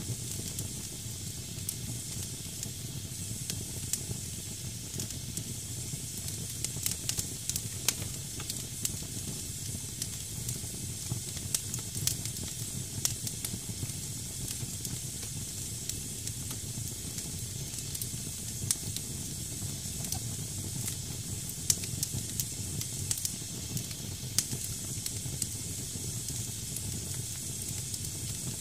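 Damp firewood burning in a fireplace: the wood hisses steadily, with frequent sharp crackles and a low rumble underneath.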